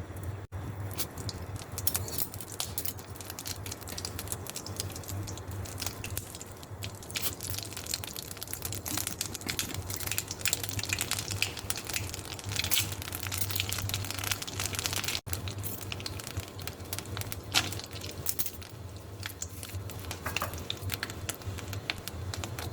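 Pan cooking: irregular crackles and clicks over a steady low hum.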